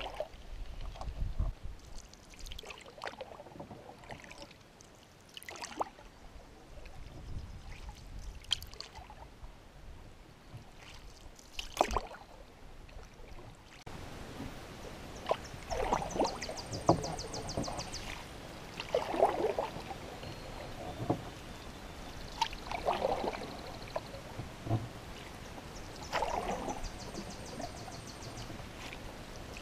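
Canoe paddle strokes on calm water: the blade dipping and pulling every few seconds, with splashes, drips and gurgles, louder after about fourteen seconds. A high, rapid trill sounds twice in the background.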